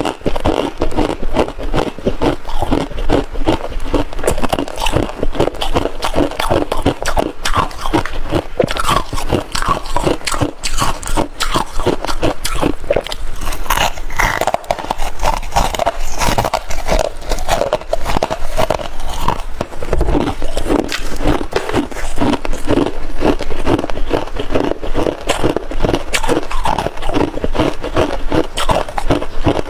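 Close-miked biting and chewing of crunchy freezer frost and ice, a dense, continuous run of crackling crunches.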